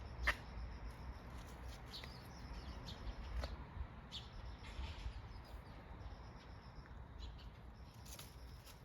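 Birds chirping in short, scattered calls, with a sharp chirp about a third of a second in, over a steady low rumble.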